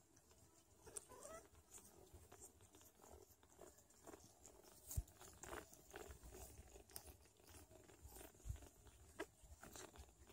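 Faint, scattered soft clicks, taps and wet licking sounds as a Sphynx mother cat licks and nurses her kittens while they shuffle on a fleece blanket, with one faint rising squeak about a second in.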